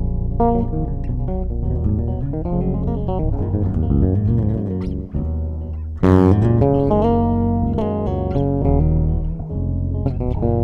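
Extended-range electric bass played fingerstyle: a continuous run of melodic notes, with a sharp, bright attack about six seconds in.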